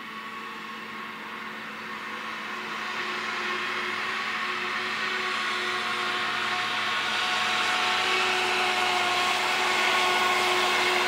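CN freight train's diesel locomotives approaching: a steady rumble with a hum of several steady tones, growing gradually louder.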